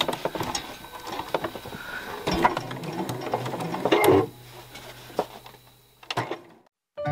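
Domestic sewing machine stitching a topstitch line through the layered stretch-denim fly of a pair of trousers, a fast clattering run that stops about four seconds in. A low steady hum and a single click follow, and the sound cuts off just before the end.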